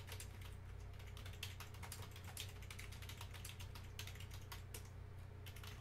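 Typing on a computer keyboard: a quick, irregular run of key clicks, over a faint steady low hum.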